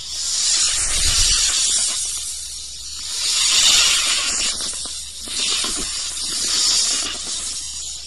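Snake hissing: three long hisses that swell and fade about every three seconds, the middle one the loudest.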